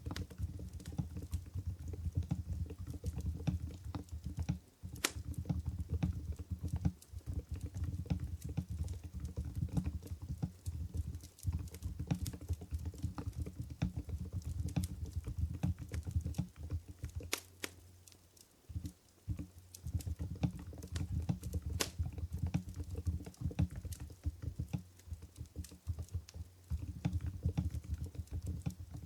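Mstone Groove GV10 keyboard with silent Coral 45 g switches being typed on continuously: a dense run of soft, low keystrokes, with a short pause about two-thirds of the way in.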